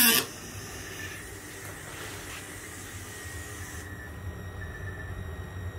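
Workshop background noise: a low, steady hum with a soft hiss over it that cuts off a little under four seconds in. The background music ends just at the start.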